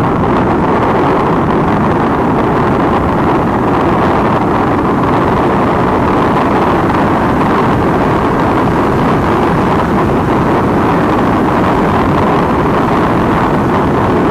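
Steady roar of wind on the microphone at over 200 km/h on a Triumph Daytona 675, with the engine running under it. The helmet's chin wind deflector is missing, which lets in more wind noise.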